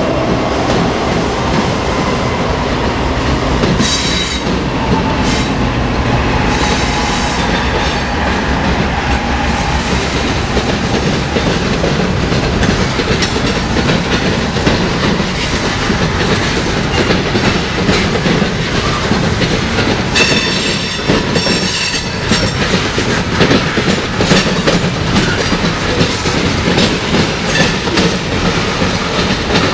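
Train rolling past with its wheels clacking over rail joints, with short high-pitched wheel squeals about four seconds in and again around twenty seconds in; the clacking grows choppier toward the end.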